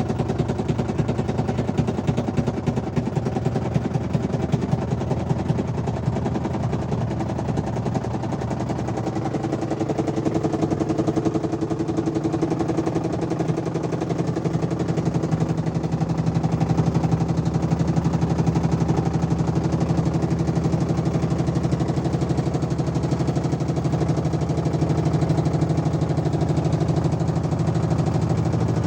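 Engine running steadily, growing a little louder from about halfway. The owner puts a knock in this engine down to counterweight bolts that had worked loose.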